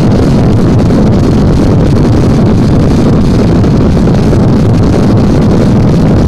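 Very loud dance music from a big sound system, overloading the microphone into a dense, distorted rumble.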